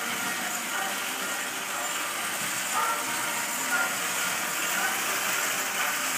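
Vintage Lionel toy electric train running on its track: a steady hiss and rumble from its motor and wheels on the rails.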